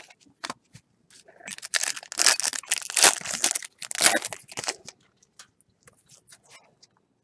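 Foil wrapper of a baseball card pack being torn open and crinkled, a dense crackling rustle from about a second in until nearly five seconds, then a few faint ticks.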